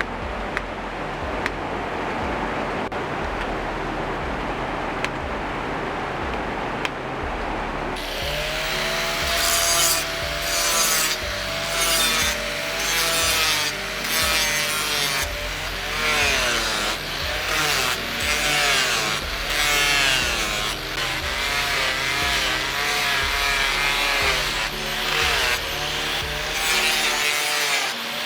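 Rhythmic back-and-forth hand-tool strokes, a saw or file working the knife, scraping with a squeal on each stroke, about one stroke a second, starting some eight seconds in after a stretch of low steady noise.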